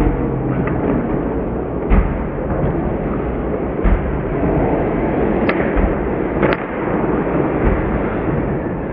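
Ice hockey rink sound during play: a steady hubbub of the arena with a few dull thuds and two sharp clacks, from the puck, sticks and boards.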